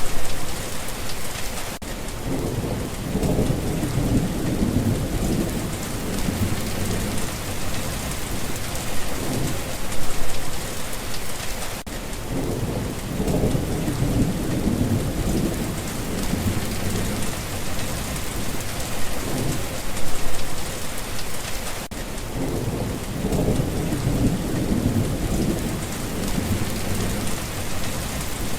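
Steady heavy rain falling, with low rolls of thunder rumbling under it. The rain recording repeats about every ten seconds, with a slow rumble swelling up in each cycle.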